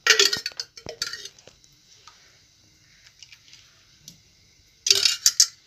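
Metal ladle clinking and scraping against a metal pan of heating oil: a few sharp strokes at the start and about a second in, then a quick cluster near the end, over a faint steady hiss.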